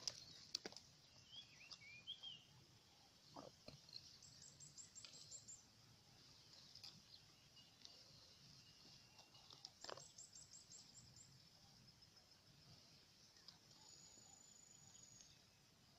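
Faint wild bird calls: a few short chirps, then two quick runs of high twittering notes and a short held high note near the end, over a steady high hiss and a few soft knocks.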